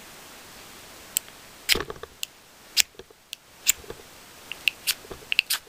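A string of sharp, irregular clicks and taps from small plastic and metal survival-kit items being handled, the ferro rod with its built-in compass among them; they come closer together near the end.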